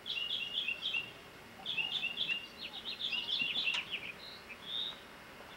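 Small birds chirping: quick runs of short, high notes in three bursts, then two longer single notes near the end.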